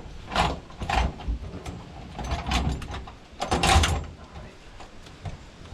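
Combine feederhouse conveyor chain clanking and scraping in several separate bursts as it is pulled out of the feederhouse by hand, the loudest rattle a little past the middle.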